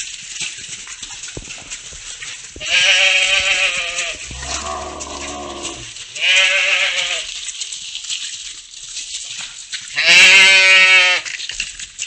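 A flock of sheep bleating as it trots past: three loud, wavering bleats and one lower-pitched bleat in between. Faint hoof steps on cobblestones run under them.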